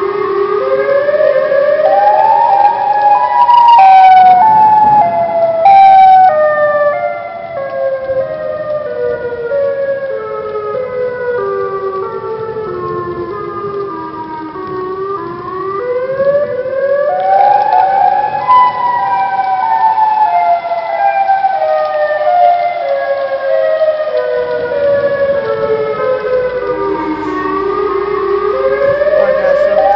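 Loud, siren-like electronic tone that moves in distinct steps rather than a smooth wail: it climbs for a few seconds, steps slowly down for about twelve seconds, jumps back up about halfway through and steps down again, then starts climbing once more near the end.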